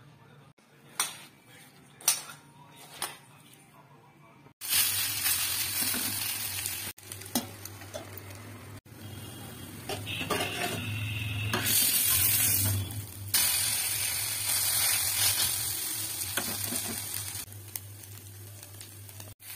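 Banana fritters sizzling in oil on a cast-iron griddle. The hiss cuts in suddenly about four seconds in and rises and falls a few times. Before it come three sharp clicks over near quiet.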